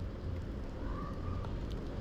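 Steady low background rumble with a few faint ticks of Eurasian tree sparrows pecking seed off a wooden board.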